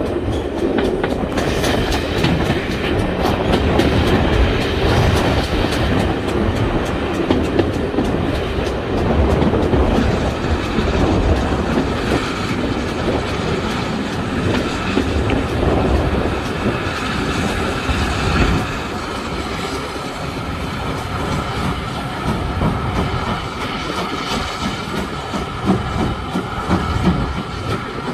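Steam-hauled heritage passenger train running along the line: a steady rumble with wheels clicking over the rail joints.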